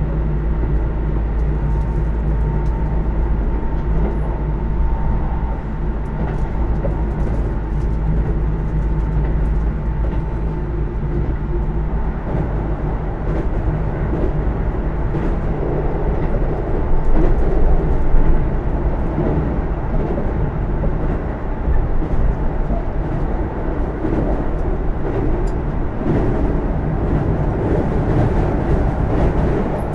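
Keisei AE100 series electric train running, heard from inside the passenger cabin: a steady low running noise of wheels on rail with frequent clicks. A faint steady whine fades out a few seconds in.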